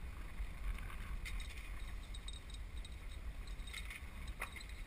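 Wind buffeting a small camera microphone high on a sailing yacht's mast: a steady low rumble, with a few faint clicks, about a second in and twice near the end.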